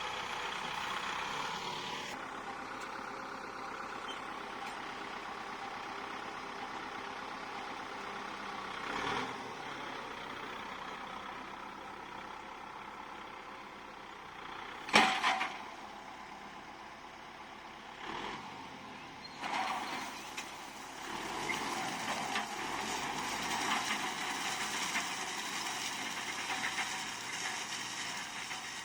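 Tractor engine running steadily while driving a PTO hay rake, with the rake's mechanical rattle. There is one sharp knock about halfway through and a few smaller knocks.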